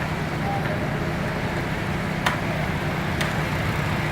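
Concrete mixer truck's diesel engine running steadily at the pour, with two sharp knocks about a second apart.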